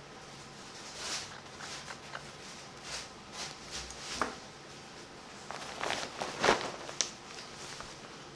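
Handling of surgical drapes and instruments: a scattered series of short rustles and light clicks, the loudest about six and a half seconds in.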